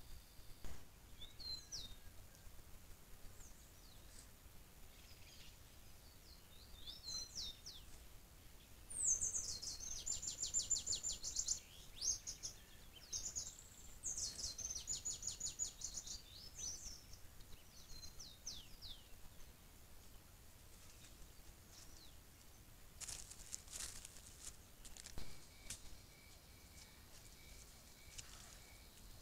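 Songbirds calling in forest: trills and quick sweeping high notes, then rapid runs of repeated high chirps in the middle, which are the loudest part. Near the end come a few brief rustling clicks and a faint steady high tone.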